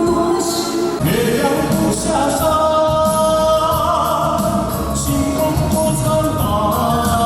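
Music with singing: a voice holding long notes over accompaniment.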